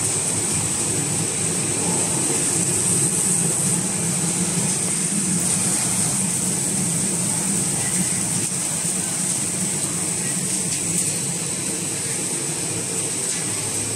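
Steady running noise of a popcorn production line's machinery: electric motors, fans and an inclined cleated conveyor working together, with a constant high whine over a low hum and a few faint ticks.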